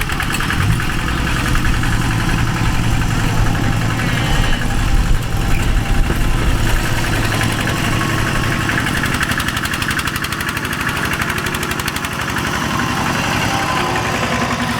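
Kubota DC-70 Plus rice combine harvester running steadily, its engine hum loudest about five seconds in.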